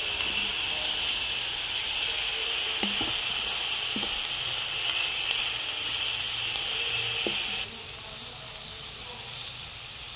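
Squid balls, diced ham, onion and garlic sizzling steadily in hot oil in a pan, with a few light knocks of a wooden spatula stirring. The sizzle drops quieter about three-quarters of the way through.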